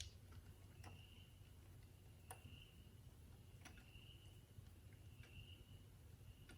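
Near silence, with faint sharp ticks and a faint high chirp, each repeating about every second and a half.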